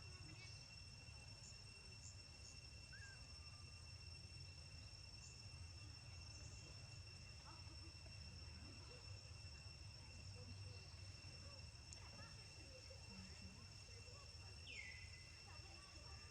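Faint, steady high-pitched insect drone from crickets or similar insects, over a low background rumble, with one short falling chirp near the end.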